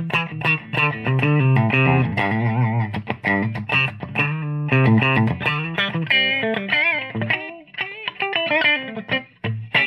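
Electric guitar played through a late-1980s Scholz Research & Design Rockman Compressor module, switched in, into a Bogner tube amp and a 1x12 cabinet. It plays quick runs of notes, then bent notes with vibrato about six seconds in, then a few sparser notes.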